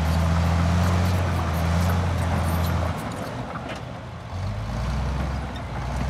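Komatsu D65P-11 crawler bulldozer's diesel engine running under load as the dozer pushes dirt, with scattered clinks and rattles from the steel tracks. About halfway through the engine note falls away, then picks up again at a lower pitch.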